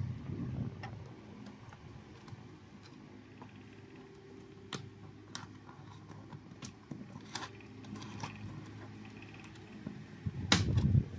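Scattered sharp plastic clicks as a laptop's bottom case is pried loose around its edges, with a louder clatter of knocks near the end.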